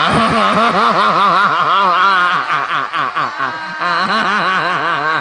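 A man laughing into a microphone: a long, unbroken run of 'ha-ha' pulses, about three a second.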